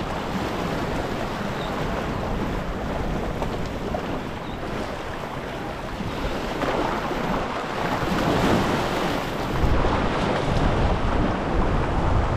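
Surf washing and splashing against jetty rocks, a steady rushing noise that grows louder about two-thirds of the way through, with wind buffeting the microphone.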